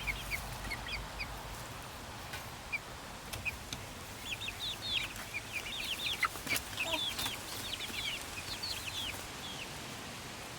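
Chickens peeping and chirping: many short high calls, busiest in the middle stretch, with a few faint clicks among them.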